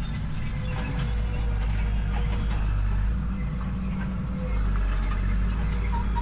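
A large engine runs steadily with a deep, even drone, which dips briefly about four seconds in before resuming.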